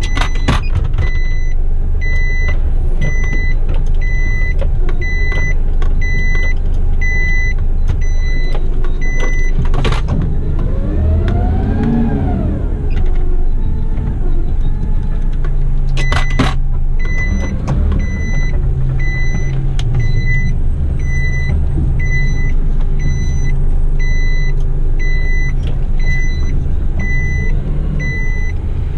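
Isuzu garbage truck's reversing alarm beeping about one and a half times a second over the steady running of its diesel engine. The beeping stops for several seconds in the middle, when the engine revs up and back down, and sharp knocks come near the start, at the pause and just before the beeping resumes.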